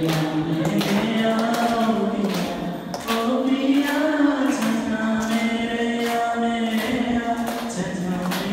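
Young men singing a song together, with long held notes that slide between pitches.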